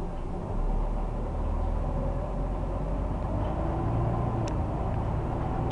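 Scania Omnidekka double-decker bus's diesel engine running as the bus drives, heard from inside the passenger saloon as a steady low rumble that grows louder about half a second in. A faint single tick sounds near the end.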